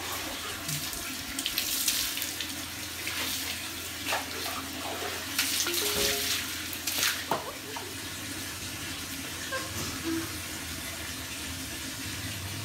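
Water from a hose spraying onto a wet Siberian husky's coat and splashing on the concrete floor as the dog is rinsed. The steady rush of spray has a few louder surges in the first half.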